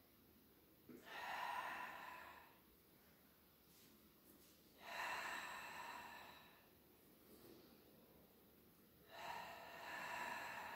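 A woman breathing audibly through the mouth: three long, hissing Pilates breaths, about a second in, about five seconds in and about nine seconds in. The breaths are timed with squeezing and releasing a soft exercise ball in a chest-press exercise.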